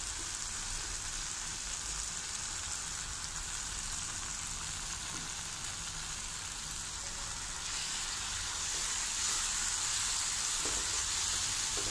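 Chopped onion, tomato and garlic frying in oil in a kadai: a steady high sizzle that grows a little louder from about eight seconds in.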